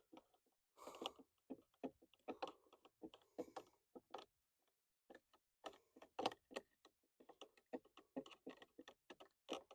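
Faint, irregular light clicks and taps of small parts being handled on a two-stroke outboard's carburetor, with its float bowl off.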